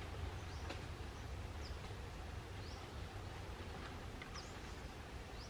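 Quiet outdoor ambience: a low steady rumble with several short, faint, high bird chirps scattered through it.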